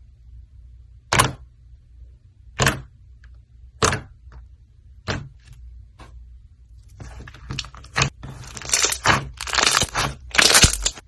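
Slime worked by hand close to the microphone, giving sharp crackling pops: four single ones spaced a second or so apart, then from about seven seconds in a denser run of crackles and crunches.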